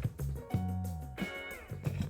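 Background music: a guitar-led track with bass notes and drum hits.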